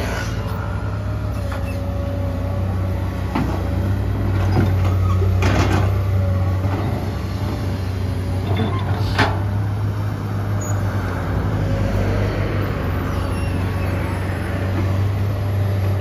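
Komatsu PC200-8 excavator's diesel engine running steadily at working revs, with a few sharp knocks at intervals from the machine at work.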